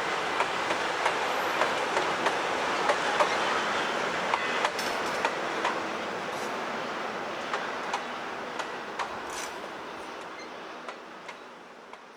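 Train rolling past on the rails, wheels clicking over the rail joints in an uneven run of sharp clicks over a steady rumble, fading away as it moves off.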